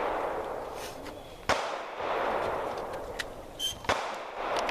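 Two gunshots about two and a half seconds apart, each followed by a rolling echo.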